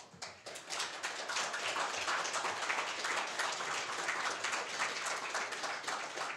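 Audience applauding: many hands clapping, starting right away and building within about a second to a steady round of applause.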